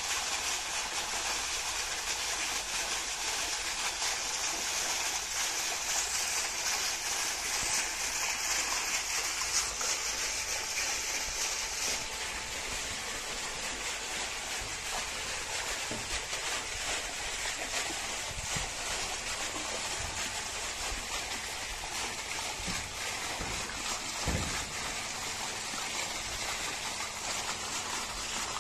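Water pumped by a Jodai DC 750 W solar-powered centrifugal pump gushing from the outlet pipe and splashing steadily onto the canal's surface, a continuous rushing hiss. It turns a little softer after about twelve seconds.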